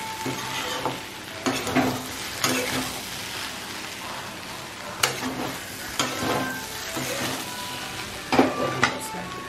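A metal spatula stirring and scraping a samosa filling of diced potato and peas around a kadhai as it fries, over a steady sizzle. Several sharp scrapes against the pan, the loudest near the end.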